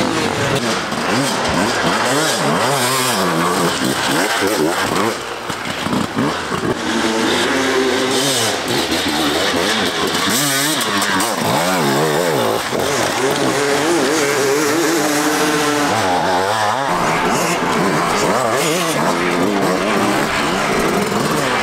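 Enduro motorcycle engines revving, the pitch swinging up and down with repeated bursts of throttle.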